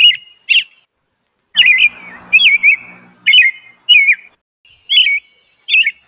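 Robin singing: a run of short, clear whistled phrases repeated one after another, with a pause of about a second near the start.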